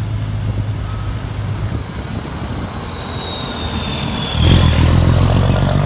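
Volvo F16 tanker tractor's diesel engine running as the truck turns slowly, rising clearly louder about four and a half seconds in as it pulls away, with a faint high whine above it.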